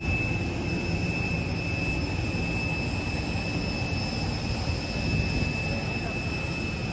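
Jet aircraft turbines running: a steady high whine with two thin high tones over a low rumble.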